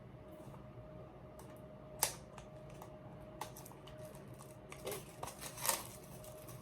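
Hands handling a CD album and its packaging: a sharp click about two seconds in, a few lighter ticks, then short bursts of rustling near the end.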